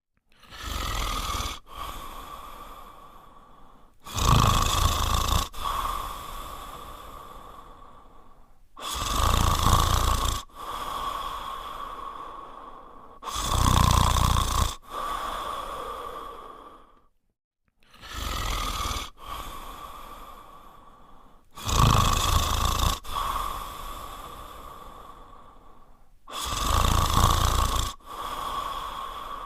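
French Spaniel dog snoring in its sleep: a slow rhythm of loud snoring breaths about every four to five seconds, each one fading out with a whistling note.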